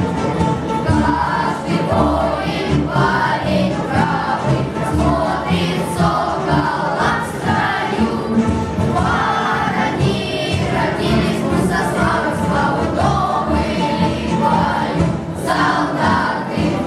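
A choir singing with musical accompaniment, continuously and steadily loud.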